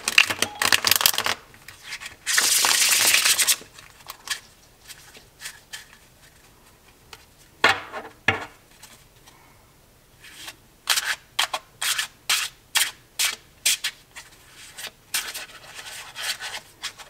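A deck of thin, bendy tarot cards being shuffled. A riffle with a dense run of clicks leads into a loud fluttering cascade as the cards fall back together, followed by a couple of knocks near the middle. Then comes a hand-over-hand shuffle in a steady series of short card slaps, about two a second.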